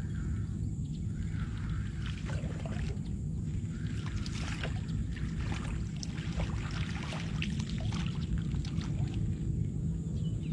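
A hooked fish splashing at the water's surface as it is reeled in to the bank, in repeated bursts over several seconds. Wind rumbles steadily on the microphone.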